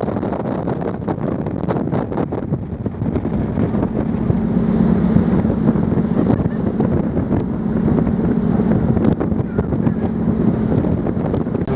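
Wind buffeting the microphone over the steady low drone of the Pride of Burgundy ferry under way, with a low hum that strengthens about three seconds in.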